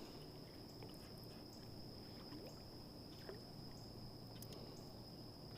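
Quiet outdoor ambience: a steady, high-pitched drone of insects, with a low hum beneath and a few faint clicks.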